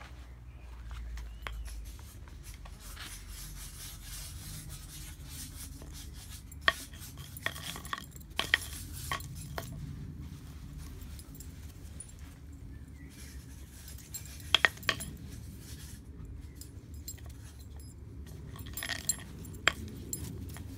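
A puppy chewing and pushing a wooden-handled brush about on brick paving: rubbing and scraping, with sharp knocks as the handle and bristle block hit the bricks, several in a cluster about seven to nine seconds in, two close together near fifteen seconds, and a few more near the end.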